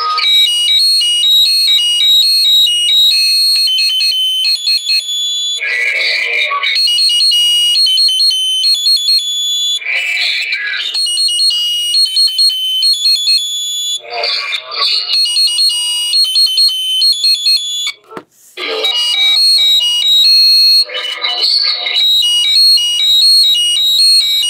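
Olympus Note Corder DP-201 voice recorder playing back a recorded Christmas song through its tiny built-in speaker: loud, thin and shrill, with no bass, steady high tones and voices coming and going. The playback stops briefly about 18 seconds in, then starts over.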